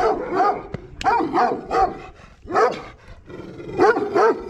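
Dog barking repeatedly, about eight short barks, some in quick pairs with brief pauses between.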